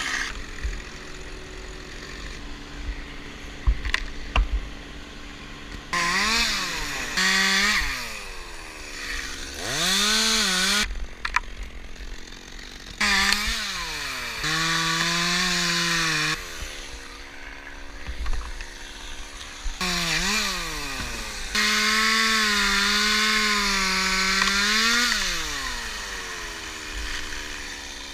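Chainsaw engine revving up and down again and again, its pitch climbing and dropping with each burst, between quieter stretches of lower running. A few sharp clicks or knocks come in the quieter opening seconds.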